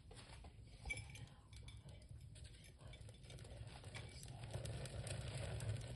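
Faint clinks and light knocks of small objects being handled, one sharper click about a second in, then a soft hiss that grows louder near the end.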